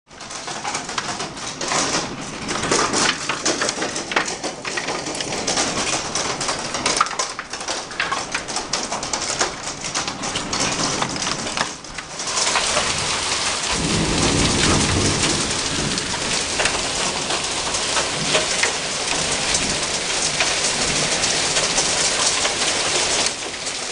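Hailstorm with heavy rain. For the first half, hailstones tick and clatter sharply against the window and house over the hiss of the rain. About halfway the sound opens up into a louder, steady hiss of hail and rain pouring down outdoors, with a low rumble of thunder a couple of seconds later.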